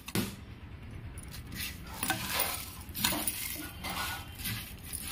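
A hand tossing and mixing crisp fried jowar flakes with chopped onion in a non-stick pan: uneven scraping and rustling strokes, with a few light knocks against the pan.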